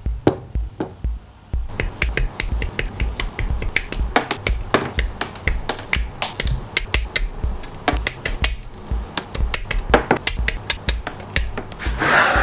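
Rapid sharp plastic clicks and snaps as gunpla kit parts are cut from their runners and pressed together, with a short rubbing scrape near the end, over background music with a steady beat.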